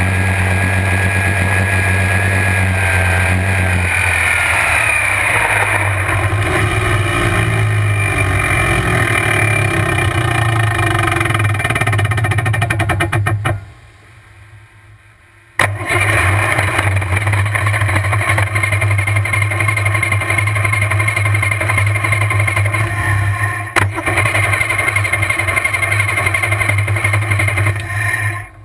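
A 1450 hp supercharged alcohol engine in a drag boat running at low speed, with a high whine from the blower drive that falls in pitch about four seconds in as the boat slows. The engine drops out for about two seconds midway and comes back abruptly. It cuts out just before the end, in line with the boat running out of fuel.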